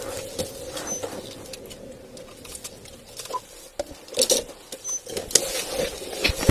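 Body-worn camera rustling and knocking against the officer's uniform and the patrol car's interior as he moves in the driver's seat and climbs out, with a steady faint tone underneath and a few louder knocks in the second half.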